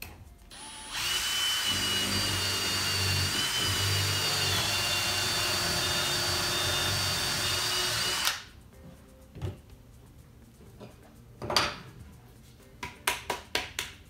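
Cordless drill boring a connector hole through a drill jig into a thick hardwood block: it runs steadily with a high whine for about seven seconds, then stops. After it, a couple of wooden knocks and a quick run of taps as the block is handled and sawdust is knocked out of the hole.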